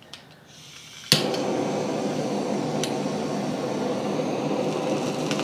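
Handheld butane kitchen torch, a torch head on a butane canister, lighting with a sharp click about a second in, then its flame hissing steadily as it browns the surface of a steak.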